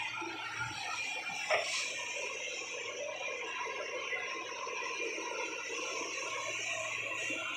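Hyundai 210 excavator running steadily, a continuous mechanical hum with several held tones, and a single sharp knock about a second and a half in.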